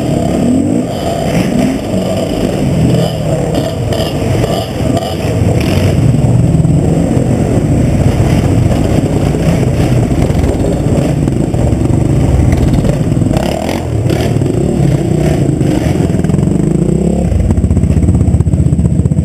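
Husqvarna TE 250 enduro motorcycle's single-cylinder engine running at low speed over cobbles and then idling, with some rattling from the bike.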